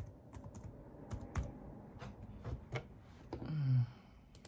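Faint, irregular light clicks and taps, about ten spread over the few seconds, with a short low hummed voice sound, falling in pitch, near the end.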